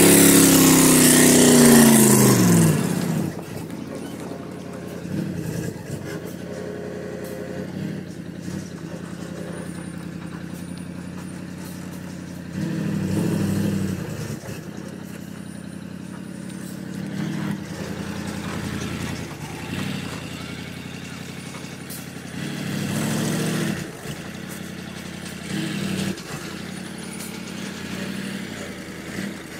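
Diesel engine of a heavily loaded logging truck, revving hard at first and dropping in pitch about two to three seconds in, then running lower with several short surges of throttle as the truck crawls along.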